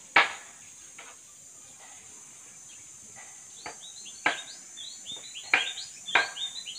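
Steady high-pitched insect buzzing, with a few sharp clicks and short chirps that come more often in the second half.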